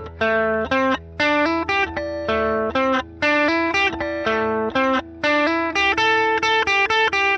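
Strat-style electric guitar played through a one-knob fuzz pedal built on the Colorsound Fuzz, into an amp modeller set to a Fender Deluxe Reverb. It plays a quick run of short, heavily fuzzed single notes, and from about halfway one note is held ringing under the run.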